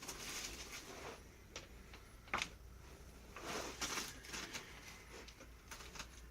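Faint rustling and handling noises, like hands and fabric moving against a padded table, with one sharp click about two and a half seconds in and a louder rustle around four seconds.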